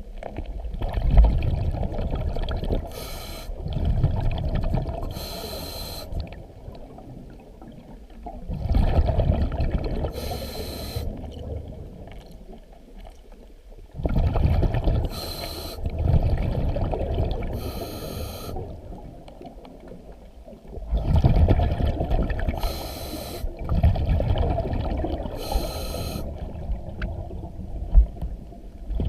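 Scuba diver breathing under water through a regulator: a hiss on each inhale and a burst of bubbling exhaust on each exhale, in a steady cycle about every six to seven seconds.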